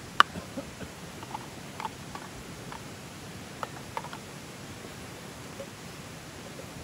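Wood fire crackling under a frying pan: a sharp click at the very start, then scattered small pops and ticks over a steady faint hiss.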